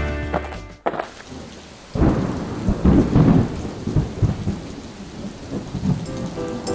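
Steady rain with a loud, low rumble of thunder that starts about two seconds in and trails off over the next few seconds.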